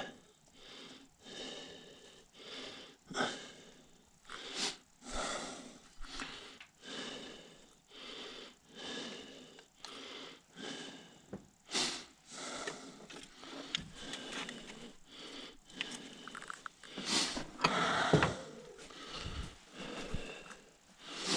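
A person breathing hard and wheezily, about one breath a second, while straining at a job, with a louder burst of noise near the end.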